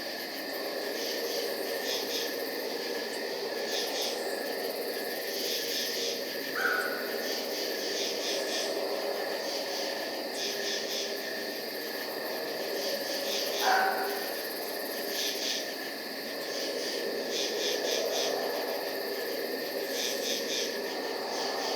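Night ambience of crickets chirping in repeated pulsed bursts over a steady low drone, with a short call about 7 seconds in and another, louder one about 14 seconds in.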